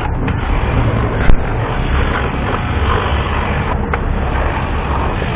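A steady, noisy rumble with one sharp click about a second in.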